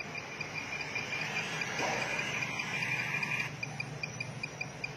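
A steady train of short high-pitched pulses, about five a second, over a low steady hum, with a hissing noise that swells between about one and three and a half seconds in.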